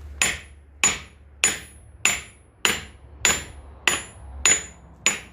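Hammer blows driving a car's front wheel hub into its new wheel bearing: about nine even strikes, a little under two a second, each with a short high metallic ring.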